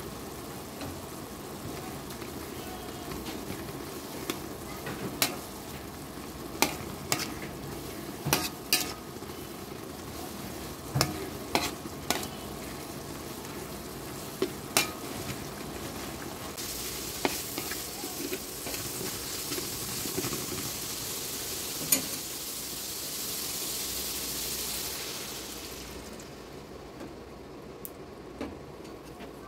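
A metal spatula stirs spiced onions frying in oil in a metal karai, with sharp clacks of the spatula against the pan over a steady sizzle. The sizzling grows louder past the middle, then dies down near the end.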